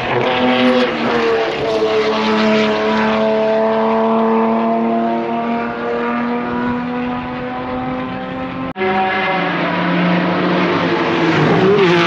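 BMW Alpina racing car's engine running at high revs, its pitch drifting only slightly, with a sudden break about three-quarters of the way through. Near the end a car goes by close and its pitch drops sharply.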